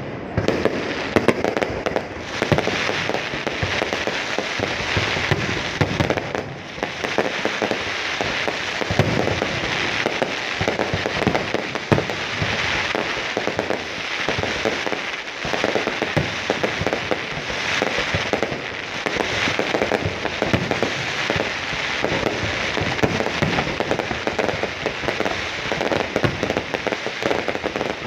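Fireworks display: a dense, continuous run of bursts and crackling with many sharp pops overlapping one another.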